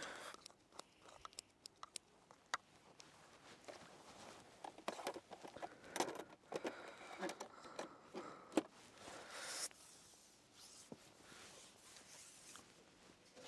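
Faint scattered clicks and soft rustles of an angler handling bait and tackle at his seat box, with a longer rustle about nine seconds in.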